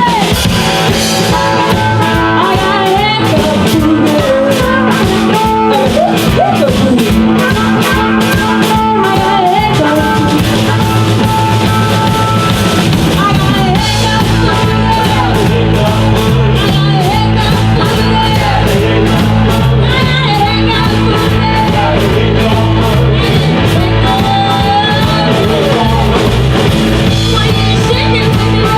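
Live rock band playing a boogie: a drum kit keeping a steady beat under electric guitar, loud and continuous. A stepping low bass line grows stronger about halfway through.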